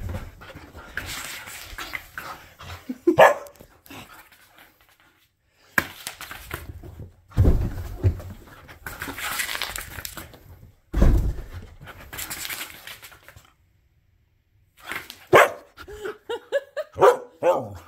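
Siberian husky barking and yipping in short bursts during excited play, with a quick string of rising-and-falling yips near the end. Between the calls come scuffling and a few heavy thumps.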